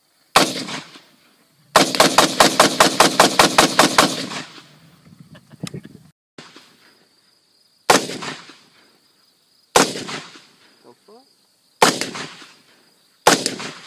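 AR-15 rifle shots: one shot, then a rapid string of shots fired about five a second for roughly two and a half seconds, then four single shots spaced about two seconds apart, each ringing out briefly.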